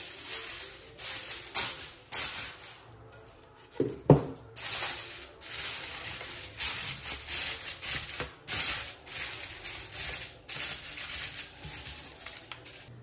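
Aluminum foil being pulled off the roll, then crinkled and pressed down around the rim of a metal baking pan: a run of crackly rustles with a sharp crack about four seconds in.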